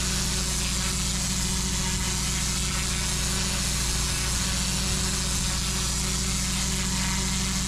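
Pressure washer's engine and pump running steadily, with the high-pressure water jet hissing against brick block paving as it strips mould off the surface.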